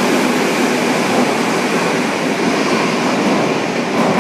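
Madrid Metro series 2000-A electric train pulling out of an underground station, its wheels and running gear running loud and steady along the platform. A few sharp rail clicks come near the end as it enters the tunnel.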